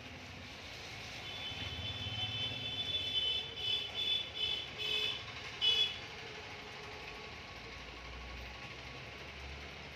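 A passing vehicle's high-pitched electronic warning tone, held for about two seconds and then sounded as four or five short beeps, over a low engine rumble. After about six seconds only a steady low hum remains.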